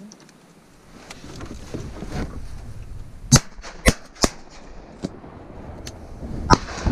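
Duck hunters' shotguns firing at passing ducks: three sharp blasts in quick succession, each about half a second apart, then a fourth about two seconds later, with a few fainter, more distant shots in between.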